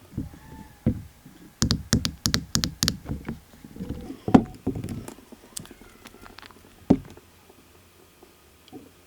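Close-up handling of gel polish bottles and tools on a tabletop: a quick run of sharp clicks and light knocks, then scattered taps and one louder knock about seven seconds in.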